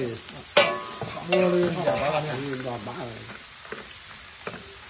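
Meat and greens sizzling in a hot steel wok as they are stir-fried with a spatula. Two sharp clanks of the spatula on the wok come in the first second and a half.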